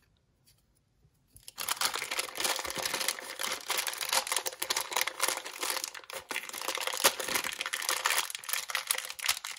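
Clear plastic packaging bag crinkling and rustling in the hands as an epilator attachment is unwrapped, starting about a second and a half in after near silence.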